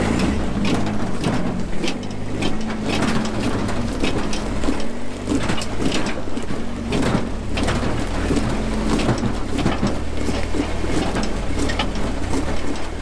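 Lifted pickup truck crawling over rock at low speed: its engine runs steadily under load while rocks crunch and crack repeatedly under the tyres.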